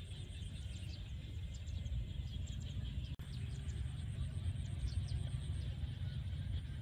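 Outdoor ambience: wind rumbling on the microphone, with faint, scattered bird chirps high above it.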